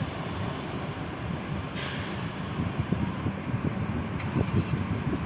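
Bus diesel engine idling with a steady low rumble, and a short hiss of released air about two seconds in.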